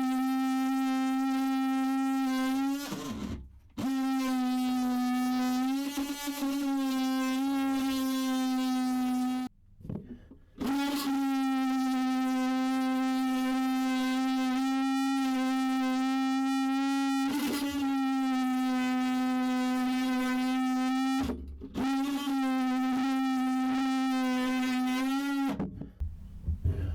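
A handheld power tool running in long bursts with a steady, high whine, stopping briefly a few times and dipping slightly in pitch now and then as it is pressed into the work, cutting through an epoxy-glued battery box.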